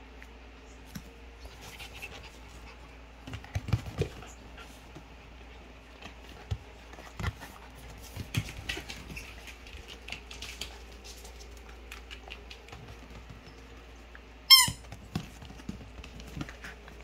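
Small dog playing with a rubber ball toy on a foam play mat: scattered soft knocks and scuffles of paws and ball. Near the end comes one short, loud squeak with a wavering pitch, from the ball's squeaker.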